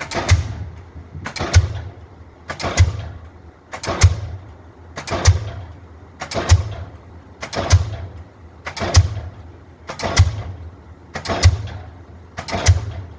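Freshly overhauled diesel pile hammer running, its ram striking in a steady rhythm of about one blow every 1.2 seconds, eleven blows, each a sharp bang with a low rumble and a short decaying tail.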